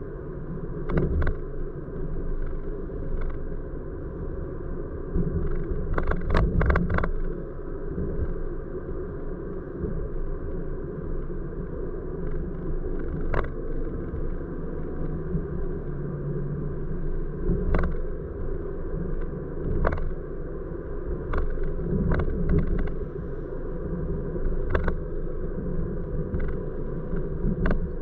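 A car heard from inside its cabin while driving on a city street: a steady low rumble of engine and tyres, broken by scattered short knocks and clicks, with a cluster of them about six to seven seconds in.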